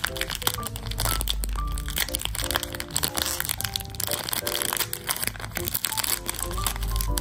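Plastic packaging of a blind-bag squishy toy crinkling and crackling as it is torn open and handled, over background music with melody notes and a heavy bass.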